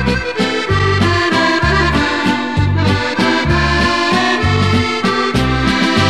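Instrumental background music with a steady bouncing beat: low bass notes alternating with chords under a melody.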